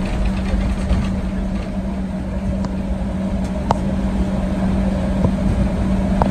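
Cabin noise of a Boeing 737-800 rolling on the ground after landing: the steady hum of its CFM56 engines at low power and a low rumble from the wheels, with a few sharp clicks, the loudest about three and a half seconds in.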